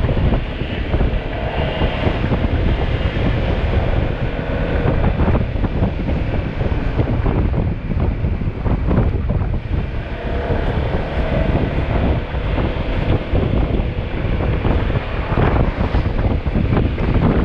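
Wind buffeting the microphone on a moving motorcycle: a loud, steady, low rumbling rush.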